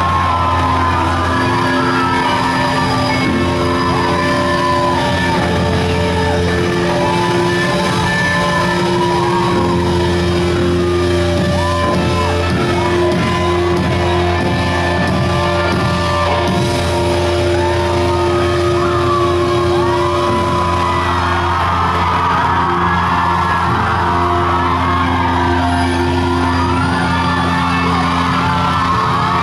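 Live rock band playing loud held chords while a packed crowd shouts, whoops and sings along.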